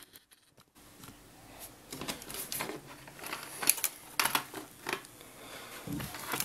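Scattered light clicks, taps and rustles of small metal tools and clamps being handled on a workbench, getting busier in the second half.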